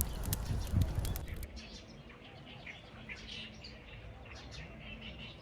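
Small birds chirping in many short, high calls. For the first second and a half, louder clicks and knocks over a low rumble, which cut off suddenly.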